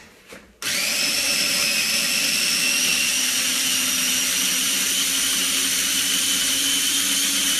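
Small food processor switched on about half a second in and running steadily, pulverizing cilantro stems and leaves, garlic and olive oil into a pesto.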